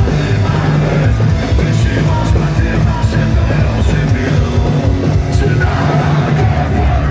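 Punk rock band playing live at full volume: distorted electric guitars, bass and drums, with the singer shouting the vocal into the microphone. The mix is heavy in the low end.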